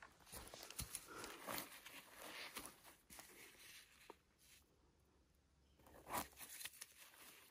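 Faint, irregular rustling and crunching in dry forest-floor litter, with small snaps and a louder rustle about six seconds in.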